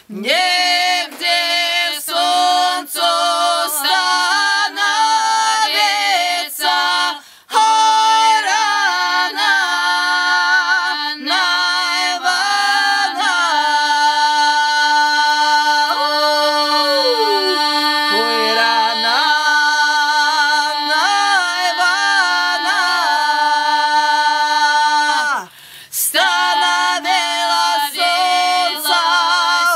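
Three women's voices singing a Belarusian Kupalle folk song a cappella in several parts: one voice holds a steady low drone while the others move above it. The singing breaks off briefly twice, about seven seconds in and again near the end.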